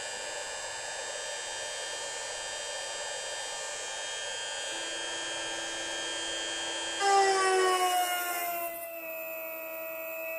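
CNC mill's Bosch router spindle, converted to a shunt motor, whining steadily at speed. About seven seconds in, the end mill bites into the steel block: the sound jumps louder and the whine slides down in pitch over a couple of seconds as the spindle bogs down under load.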